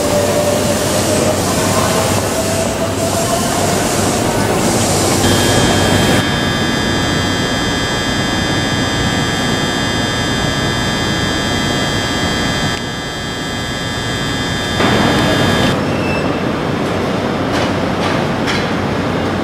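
Tokyu 1000 series electric train standing at a station platform: steady noise from the train with a set of steady high whining tones through the middle stretch. The sound changes abruptly a few times.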